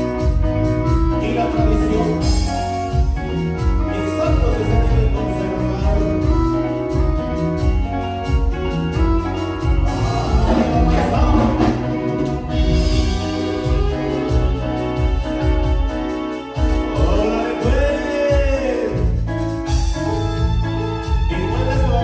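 A live band playing dance music, with keyboard, a steady pulsing bass beat and a singer's voice.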